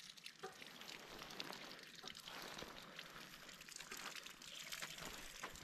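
Faint trickling and splashing of water from a spigot at a cattle water tank, a steady patter of small drips and splashes.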